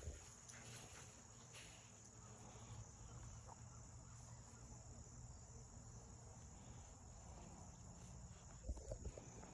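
Faint, steady high-pitched insect chirring, with a few soft thumps near the end.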